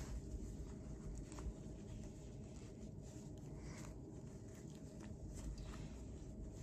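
Faint rustling and soft handling sounds of a fabric suspender strap being wrapped around a dog's collar, with a few light ticks.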